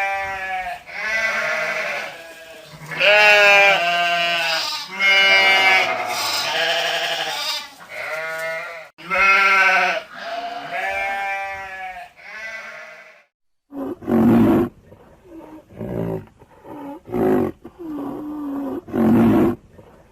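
Animal calls: a run of long, quavering pitched calls about a second each. About thirteen seconds in they stop and a different animal's shorter, lower calls follow, repeated once or twice a second.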